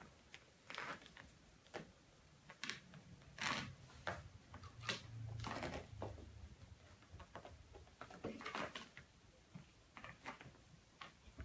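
Faint, irregular scuffs and soft knocks from a raccoon and a cat playing on an upholstered chair back.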